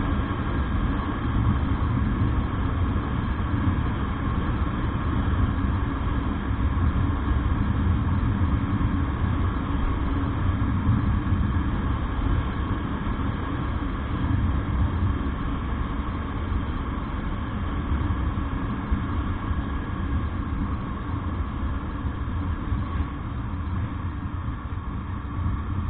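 A motorcycle riding steadily along a road: continuous engine and road noise with a strong low rumble.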